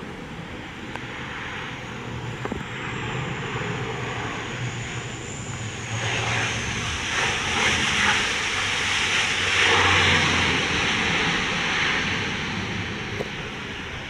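Dash 8-400 turboprop airliner rolling along the runway after touchdown. Its engines and propellers grow louder as it passes, loudest about eight to ten seconds in, then fade, with a high whine above the rushing roar.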